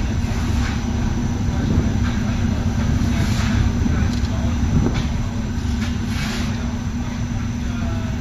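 Industrial machinery running: a steady low rumble with a constant hum and a few brief hissing surges, as from a gasifier-fired rotary drum dryer plant in operation.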